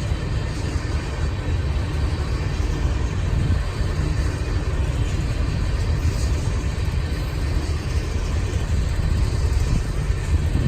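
Loaded oil train of tank cars rolling past: a steady, heavy rumble of wheels on rail.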